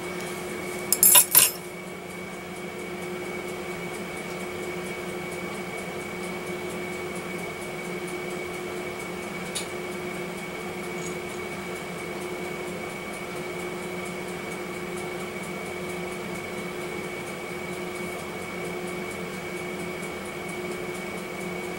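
Three quick metallic clinks about a second in, as a steel sculpting tool is set down on the table, then a steady electrical hum with one faint tick near the middle.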